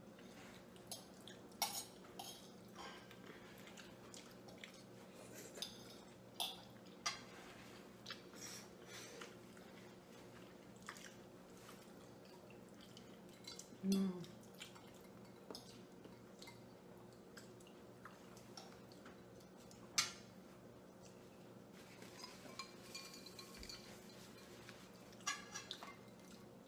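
Metal forks clicking and scraping on ceramic dinner plates at irregular intervals as two people eat, with quiet chewing between. One louder, brief low sound about halfway through, and a faint steady hum underneath.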